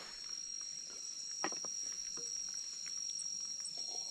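Night-time chorus of forest insects, a steady high-pitched ringing of several held tones, with scattered soft clicks and taps on top.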